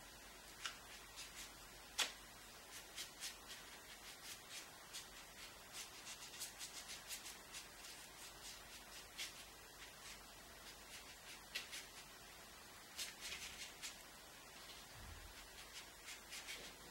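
A paintbrush working on watercolour paper: faint, irregular scratchy ticks, some in quick runs of strokes.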